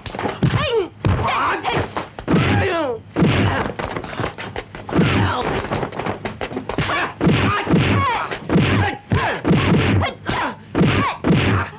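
Dubbed kung fu fight sound effects: a rapid, unbroken run of punch-and-block whacks and thuds. The fighters' short shouts and grunts are mixed in between the hits.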